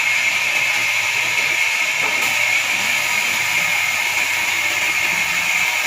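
Horizontal band sawmill's blade cutting through a large pine log, a steady high-pitched hissing whine with no let-up.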